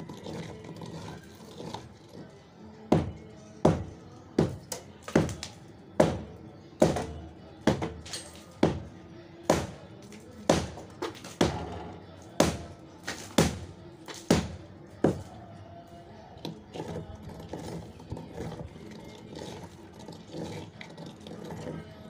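Hand hammer striking a reinforced concrete slab to break it up. A steady run of sharp blows about one a second, then lighter, scattered knocks in the last few seconds.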